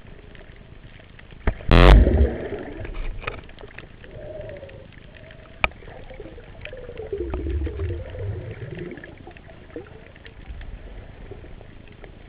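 Underwater sound picked up through a diver's camera housing on a breath-hold dive. Scattered sharp clicks and crackles run throughout, with a loud rushing burst about two seconds in and a wavering hum that swells from about seven to nine seconds in.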